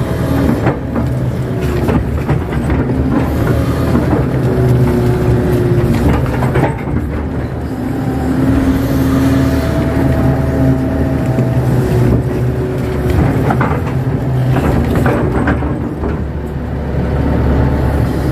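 Kato crawler excavator's diesel engine running steadily under load, heard from inside the cab, as the boom and bucket work through mud. Short whining tones from the hydraulics come and go, with a few knocks.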